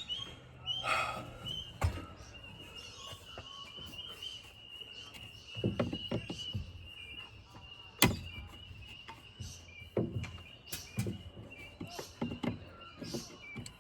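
Plastic air filter box parts being handled and fitted: scattered irregular clicks and knocks, with one sharp knock about eight seconds in, over a steady high-pitched tone.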